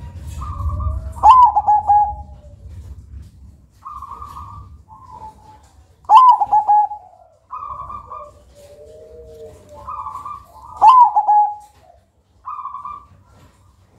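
Zebra dove (perkutut) singing its cooing song, loud and full-voiced. Three phrases come about four and a half seconds apart, each a short high note followed by a quick rolling trill of coos that drops slightly in pitch. Softer single coos fall between them.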